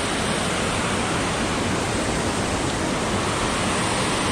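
Steady rushing roar of a waterfall and fast rapids, an even wash of falling water with no change.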